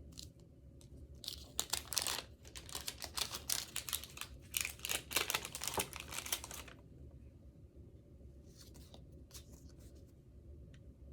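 Gift wrapping being torn open and crumpled by hand: a run of crackling tears and crinkles for about five seconds, then a few light rustles near the end.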